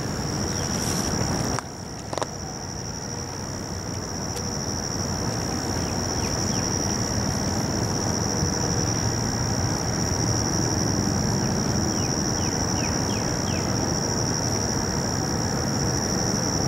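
Insect trilling steadily: one unbroken high-pitched tone, over a low steady background rumble.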